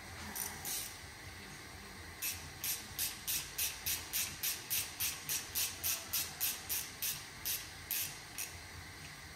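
Ratchet wrench being worked on a bolt. Two quick strokes come first, then after about a second and a half a steady run of short ratcheting strokes, about three a second, for some six seconds.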